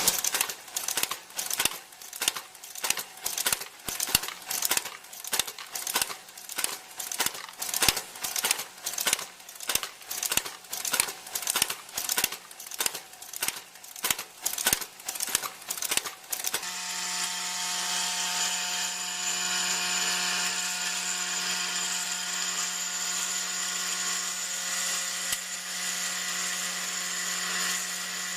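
Workshop machinery: a fast run of sharp knocks, about two or three a second, then about two-thirds of the way through a steady machine running with a high whine.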